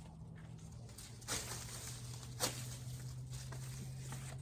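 Dry corn plants being handled: two short, sharp crackles about a second apart, over a steady low hum.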